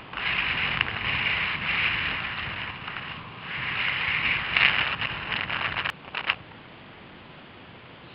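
Skis sliding over snow at speed, a loud rushing hiss that eases briefly about three seconds in, swells again and cuts off suddenly about six seconds in, with a few sharp clicks near the end of the run.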